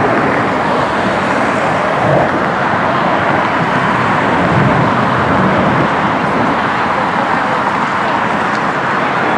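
Steady, loud jet noise from an F-35 fighter's single afterburning turbofan engine as it flies overhead, a continuous rumbling rush with no breaks.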